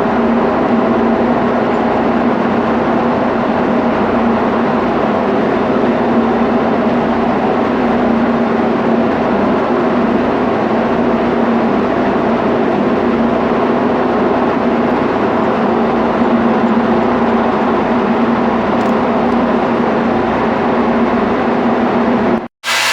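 Loud, steady drone of running ship's machinery, with a constant hum; it cuts off abruptly near the end.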